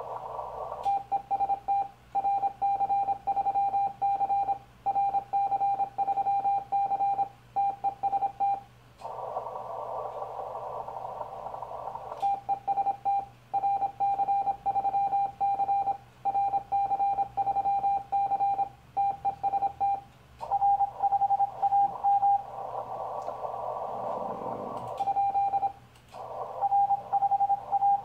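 Morse code CQ call from a Yaesu FT-1000MP transceiver on the 40 m band, heard as a keyed tone of about 800 Hz. It is sent twice, with a spell of hissing receiver noise between as the station listens for replies, and a click marks each switch between sending and listening. Near the end, shorter bursts of Morse alternate with the receiver hiss.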